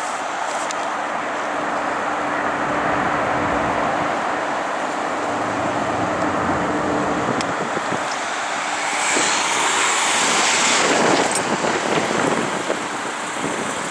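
Road traffic noise beside a heavy-haulage truck, with a faint steady hum through the first half and a louder rushing swell about nine to twelve seconds in.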